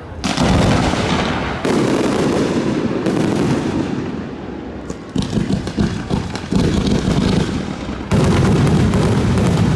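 Fireworks display going off in a dense, continuous barrage of booms and crackling. Fresh salvos cut in sharply about a quarter second in, near two seconds, around five, around six and a half, and around eight seconds.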